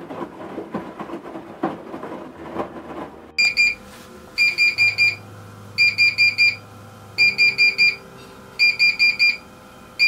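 Siemens iQ700 washing machine sounding its error alarm: groups of about five quick high beeps repeating every second and a half or so, after a few seconds of rhythmic noise. The alarm signals error E18, the machine failing to pump out its water, here a clogged drain pump.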